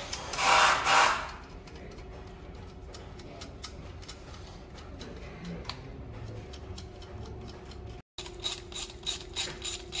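Hand tools working on the top of a Mercedes diesel engine as the fuel injectors are being removed. A brief loud burst of noise comes about half a second in, then scattered tool clicks. Near the end there is a run of quick, even ratchet clicks, about four a second.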